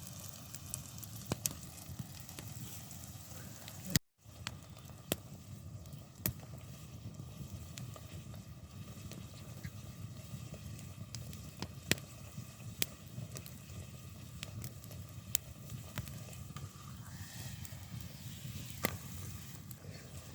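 Fire crackling: scattered sharp pops over a steady low rush, with a brief cut to silence about four seconds in.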